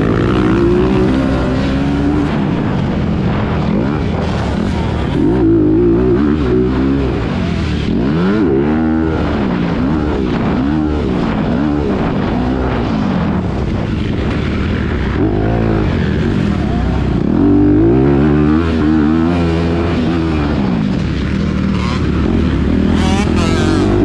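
Dirt bike engine heard from on board the bike during a motocross practice lap, revving up and down again and again as the throttle is opened and shut through ruts, jumps and corners.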